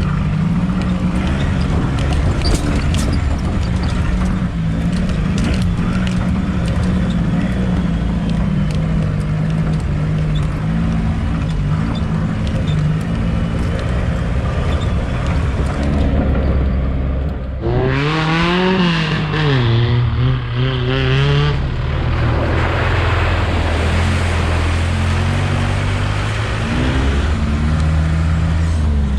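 Suzuki Caribian 4x4's engine running under way, with its note shifting as it drives, and scattered knocks and rattles. About eighteen seconds in, the pitch swings up and down sharply for a few seconds before settling.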